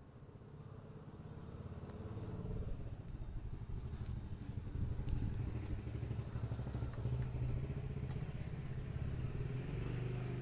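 A low, steady engine hum that grows louder over the first few seconds and then holds.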